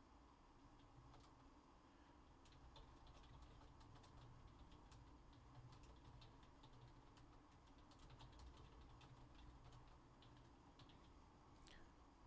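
Near silence: faint, irregular computer keyboard typing and clicks over a low steady room hum, with a brief falling squeak near the end.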